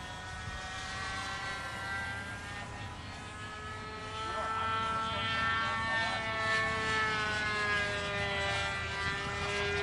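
NGH 9cc two-stroke gasoline engine of a model airplane in flight, a steady buzzing drone from its 11x7 propeller. It grows louder about four seconds in, and its pitch slides slightly lower.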